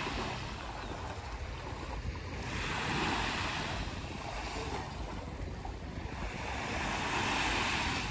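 Small waves breaking and washing up on a sandy beach, the surf rising and falling three times, about every three to four seconds.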